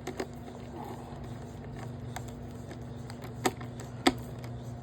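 A few sharp clicks and taps from handling the robot vacuum's plastic parts, the loudest about four seconds in, over a steady low hum.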